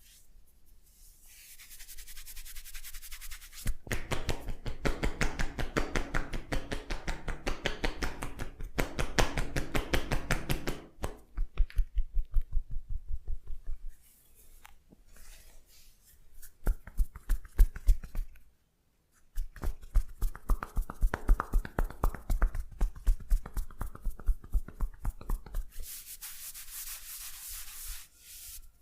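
Massage strikes on a person's head and back, quick and rhythmic at several a second in long runs, with a soft rubbing hiss near the start and end.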